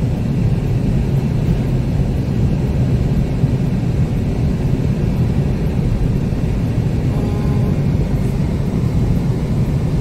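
Steady low rumble of a car driving on a highway: road and engine noise.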